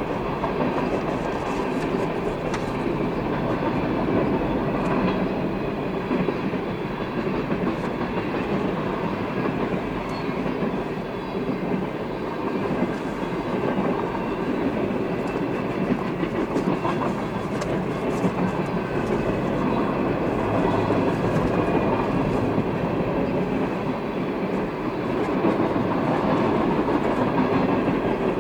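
Freight train cars rolling past, a steady rolling noise of steel wheels on rail with faint scattered clicks over the joints.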